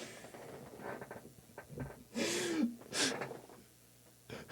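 A person breathing out heavily through the mouth twice, about two and three seconds in. The first carries a short voiced rise and fall in pitch, like a sigh.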